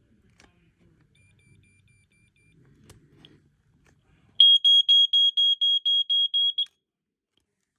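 Fox Model A smoke alarm sounding on test: a loud, high-pitched horn beeping rapidly, about five beeps a second, for a little over two seconds before it stops. A faint, lower beeping is heard briefly before it.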